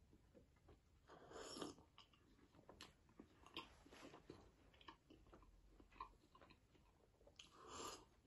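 Faint sounds of drinking from a mug: two short soft sips, about a second in and near the end, with small mouth and swallowing clicks between them.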